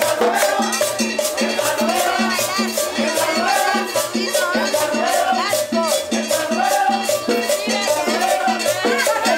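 A live cumbia band playing. A plucked upright bass keeps a steady beat under a melody, with a constant high percussion rhythm on top.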